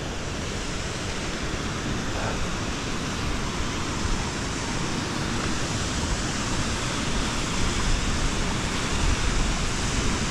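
Glacial meltwater stream rushing steadily, growing slightly louder.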